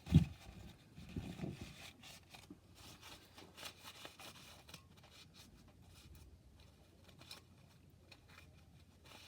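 Short scratchy rubbing and scraping strokes as caked-on old thermal paste is wiped and scrubbed off a graphics card with a towel. A dull handling bump just after the start is the loudest sound.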